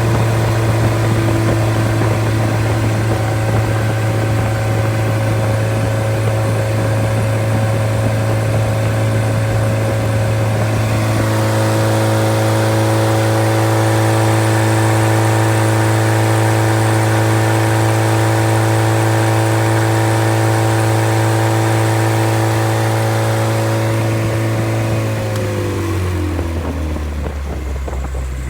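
Freshly rebuilt engine running steadily, with a small change in its note about eleven seconds in. Near the end its speed drops and it settles to a slower idle. The builder judges the engine sound, with good compression and oil pressure.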